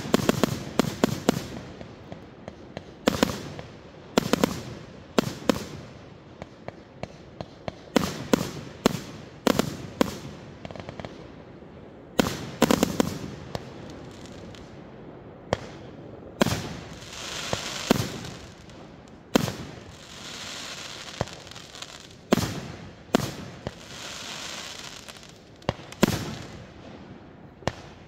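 Aerial fireworks: a long run of sharp bangs as shells burst overhead, some singly and some in quick clusters, with a longer hissing, crackling stretch a little past the middle.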